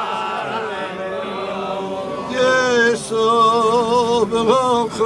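A group of Hasidic men singing a Jewish religious melody together. It grows louder from about two seconds in, with long held notes.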